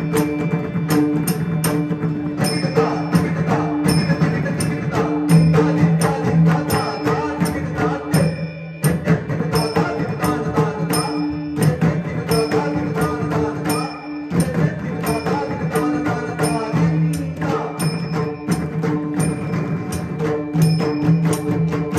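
Group of tabla drums played together in a fast, continuous rhythm, the tuned drumheads ringing under dense strokes, with two brief lulls around the middle.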